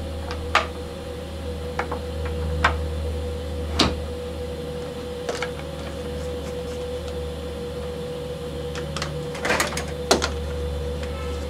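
Irregular knocks and clicks of a twisted wooden board being handled and clamped down on a CNC machine's bed, with a cluster of louder knocks near the end, over a steady low hum.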